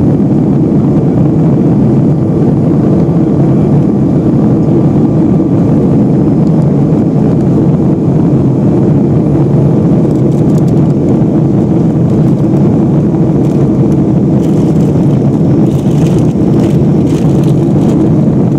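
Steady roar inside the cabin of a Boeing 757-200 in flight: its Pratt & Whitney PW2037 turbofans and the airflow over the fuselage make a deep, even rumble that does not change, with a few faint light rattles in the second half.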